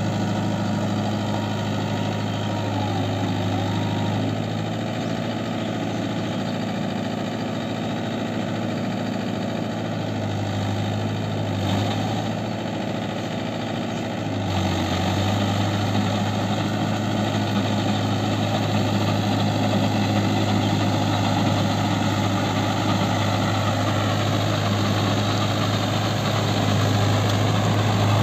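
Mahindra Yuvo tractor's diesel engine running steadily while the tractor is bogged in deep mud. It grows louder in the second half, most of all near the end.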